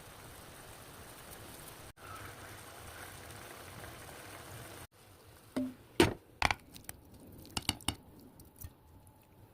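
A steady hiss in the kitchen for about five seconds, then a series of sharp clinks and knocks of utensils against dishes, the loudest about six seconds in and a quick cluster near eight seconds.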